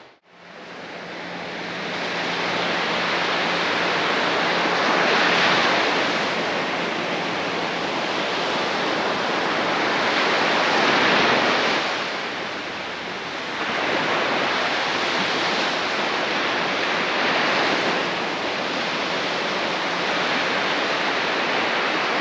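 Surf breaking on a sandy shore: a steady rush of waves that swells and eases every few seconds.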